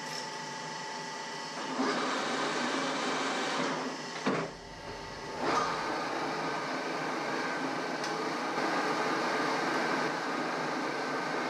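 Metal lathe running: its motor and headstock gears get louder about two seconds in. A clunk comes a little after four seconds, followed by a short lull, and then the lathe runs up again with a steady gear whine.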